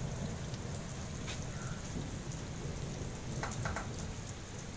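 Heavy rain falling on a wet floor: a steady hiss of drops, with a few sharp close splashes and a low rumble underneath.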